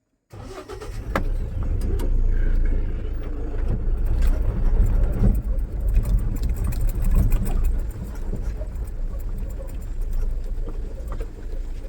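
Mahindra Bolero pickup's engine running under way on a rough track, a loud steady low rumble that cuts in suddenly a moment in, with scattered clicks and knocks over it.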